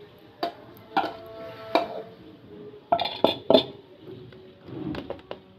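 Sharp ringing clinks and knocks against a stainless steel kadhai, about six of them, as coarsely ground chana dal is emptied into it from a ceramic bowl.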